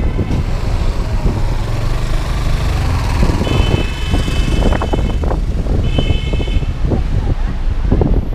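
Taxi in motion, heard from inside the car: a steady low road and engine rumble with scattered knocks. Vehicle horns sound about 3.5 seconds in and again about 6 seconds in.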